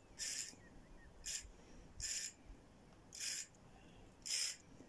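Fishing reel drag giving line in five short rasping bursts, about one a second, as a hooked fish pulls against the bent rod.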